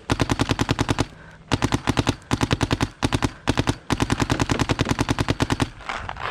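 Paintball guns firing rapid strings of shots, about ten a second, in several bursts separated by short pauses. The firing stops shortly before the end.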